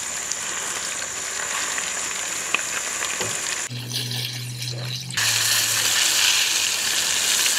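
Floured red snapper and catfish fillets sizzling and bubbling in a pan of hot frying oil. About halfway through the sizzle drops away briefly under a low steady hum, then comes back louder.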